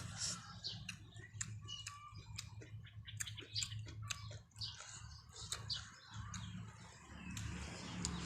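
Close-up eating sounds from a bowl of noodle soup: a string of wet mouth clicks and chewing smacks. Small birds chirp briefly in the background over a low steady hum.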